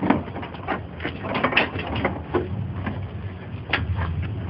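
Irregular light knocks and clanks of sheet-metal car body parts being handled and fitted, over a steady low hum.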